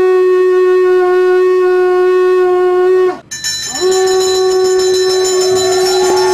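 Conch shell (shankha) blown in two long blasts on one steady note: the first held about three seconds and breaking off, the second sliding up into the note half a second later and held on. A second, higher tone swells in over it about five seconds in.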